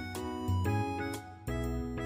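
Instrumental background music with a regular beat, its notes changing about every half second.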